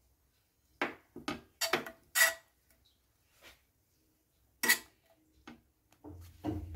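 Spatula scraping and clinking on a flat tawa griddle while spreading butter, a series of short, separate strokes with pauses between.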